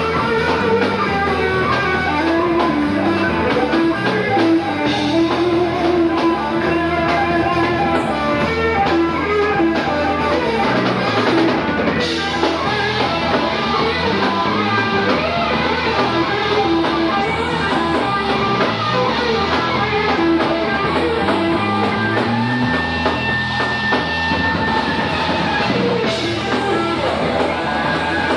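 Live rock band playing an instrumental passage: an electric guitar solos over a drum kit, with the guitar played with the teeth for much of it, and a held high note late on.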